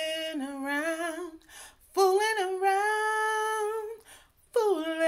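A woman singing a cappella: long held notes in three drawn-out phrases, with brief breaths between them.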